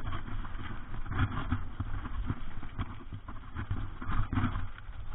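Mountain bike rolling over rough ground: irregular knocks and rattles over a low rumble.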